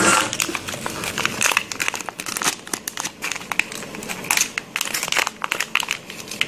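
Clear plastic vacuum-sealer bag crinkling and crackling as hands handle it, in irregular bursts with a loud rustle at the very start.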